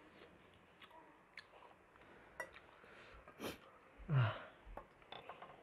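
Quiet mukbang eating sounds: a metal fork clicking and scraping on a ceramic plate, a sharp noisy breath a little past the middle, then a short low vocal grunt falling in pitch just after.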